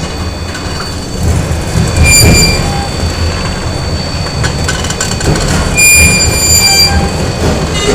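Factory machinery ambience: a steady low mechanical rumble. Loud metallic squeals ring out over it twice, about two seconds in and again about six seconds in, each lasting about a second.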